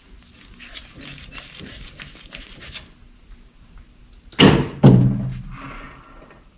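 Quiet scattered clicks and light metal taps of the dial-indicator setup being adjusted by hand on the machine, then about four seconds in a loud, short vocal sound from the machinist, a heavy voiced exhale.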